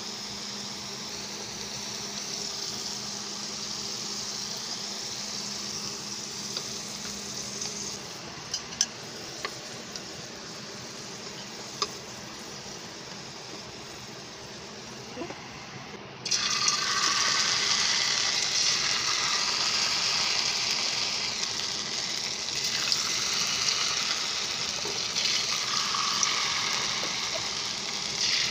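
Potato fries deep-frying in hot oil in a wok: a steady sizzle, with a few sharp clicks of the utensils against the pan. About halfway through, the sizzle suddenly gets much louder and stays that way as more fries go into the oil.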